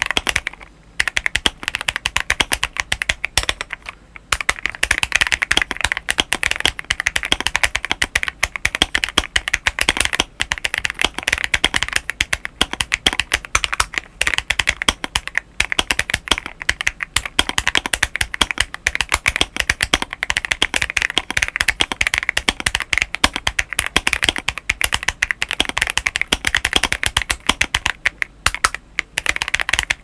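Continuous touch-typing on a modded Drop ALT High Profile 65% mechanical keyboard fitted with Akko CS Silver switches and MT3 Susuwatari keycaps: a dense, quick run of keystroke clacks, broken by short pauses about a second in, around four seconds in, and near the end.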